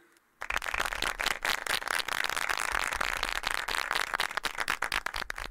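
Audience applauding, starting about half a second in as a dense, even patter of many hands clapping.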